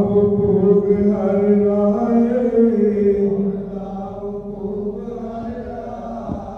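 A man chanting into a microphone in long, held notes on a steady pitch. It is louder for the first half, then softer.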